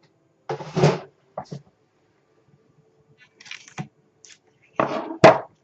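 Cardboard figure box being handled, with several short rustles and scrapes, the loudest near the end, as the box's tape seal is broken open.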